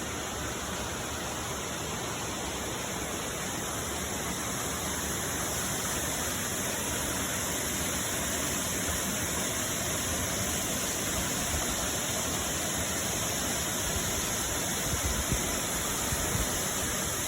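Steady rush of the Shirogane Falls waterfall, an even roar of falling water, with a few soft low bumps near the end.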